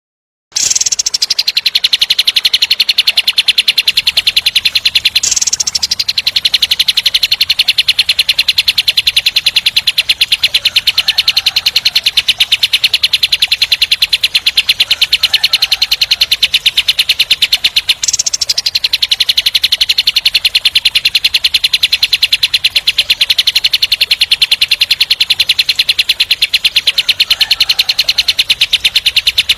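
Kapas tembak songbird delivering its harsh, very rapid 'tembak' trill: a long, tight roll of fast repeated high notes that starts about half a second in and breaks off and restarts twice, near 5 s and near 18 s.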